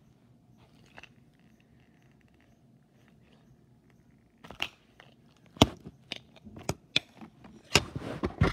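Handling noise from a small plastic toy carrier: after about four quiet seconds, a run of sharp clicks and knocks, with a burst of rustling near the end.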